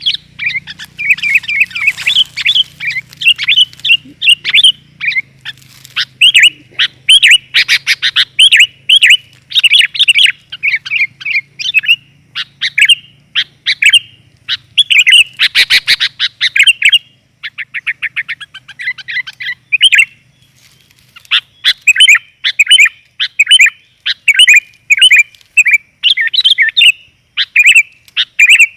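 Sooty-headed bulbul (kutilang) calling non-stop in quick, bright chirps and chattering phrases, broken by fast trilled runs. It is the female's call used as a lure to bring in wild males.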